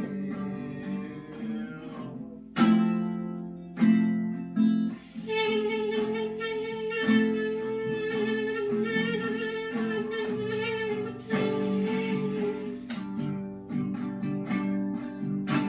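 Acoustic guitar strummed and picked in an instrumental passage of a slow song, with a long held, wavering melody note above it through the middle.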